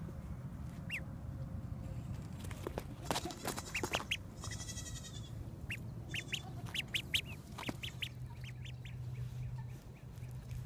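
Indian Runner duckling peeping: a scattered series of short, high peeps, coming thicker in the second half, with a brief rustle about halfway through.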